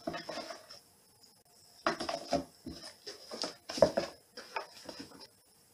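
Cats playing rough around a cardboard box on a hard floor: scrabbling paws and claws on the floor, bumps against the cardboard and knocks, coming in four or five short flurries.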